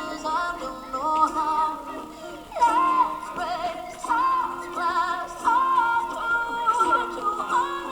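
Background music: a melody with a synthetic-sounding singing voice over accompaniment.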